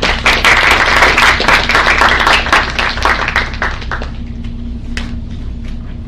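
Audience applauding, loud for about four seconds and then thinning to a few scattered claps.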